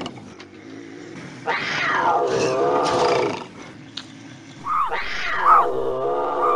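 Bobcat yowling: two long calls about two seconds each, separated by a short gap, each sliding down in pitch.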